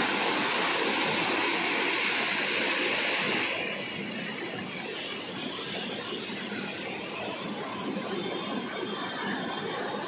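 Fast canal water rushing and churning white around a concrete pier at a canal fall, a steady rush of water. It is louder for the first three and a half seconds, then settles to a softer, even rush.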